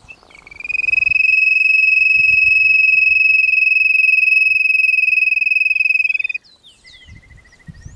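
Wooden quail whistle (pio) blown in one long, steady, high whistle of about six seconds, imitating the call of the codorna piriri; it cuts off suddenly. A faint, slightly falling trill of quick notes follows near the end.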